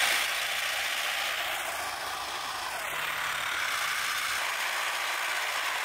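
Brushless-motor-driven, 3D-printed PLA gearboxes of a tracked tank running steadily with a loud, even gear noise. The gears are flat, straight-cut rather than helical, which is why they are so noisy.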